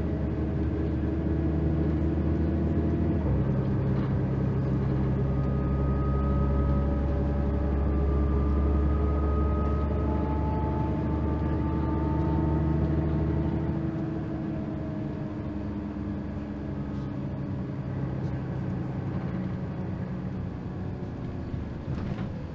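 Cabin sound of a 2003 Mercedes-Benz O530 Citaro Ü bus under way: the diesel engine pulls through its ZF automatic gearbox, with an upshift about three seconds in and a gearbox whine as it accelerates. About fourteen seconds in the engine note drops back as the bus eases off.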